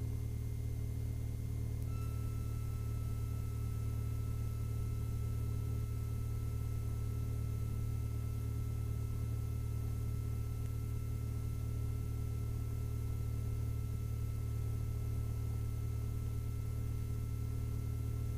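The Mooney M-20F's Lycoming IO-360 four-cylinder engine runs steadily at low power while warming up, heard from inside the cabin as a steady low drone. A thin steady high tone joins about two seconds in.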